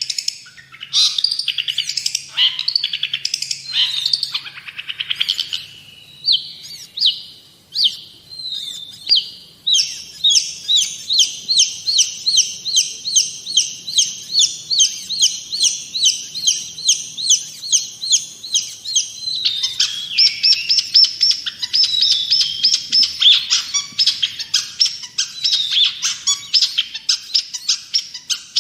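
Long-tailed shrike (cendet/pentet) singing loudly: varied chattering phrases at first, then a long run of sharp repeated notes about three a second, giving way to faster, denser chatter about two-thirds of the way through.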